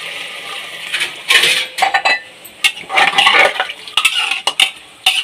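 Water poured into an aluminium pressure cooker of spiced chickpeas, then a metal spatula stirring the pot, with repeated clanks and scrapes against its sides.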